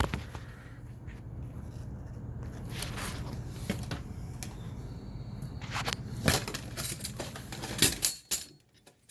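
Scattered clicks and light knocks from handling the hardware of a sliding window's charlie bar and lock, over a steady low hum that stops near the end.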